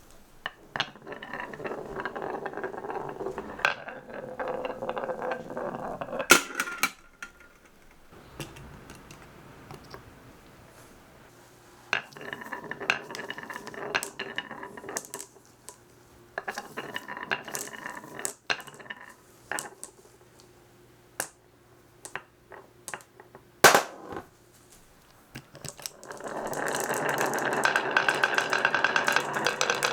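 Glass marbles rolling along wooden marble-run tracks in spells of a few seconds, with many sharp wooden clicks and clacks as they drop between pieces; two loud knocks stand out, about a fifth of the way in and again about four-fifths of the way in.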